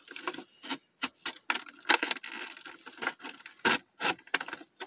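Irregular clicks, scrapes and crinkles of an action figure's cardboard-and-plastic packaging being handled, with the sharpest click a little before the end.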